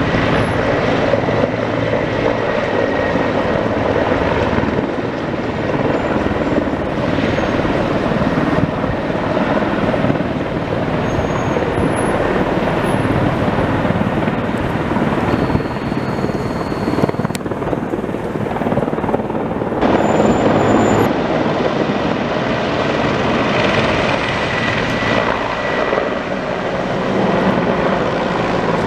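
Mil Mi-24 attack helicopter flying past overhead: steady rotor and turbine engine noise, a little louder about twenty seconds in.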